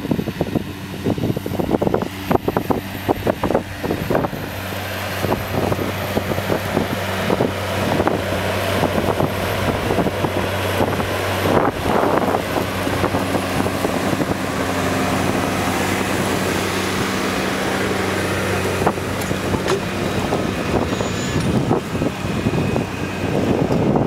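Case IH Puma tractor's diesel engine pulling a plough, running steadily under load. It grows loudest as the tractor passes close, about halfway through.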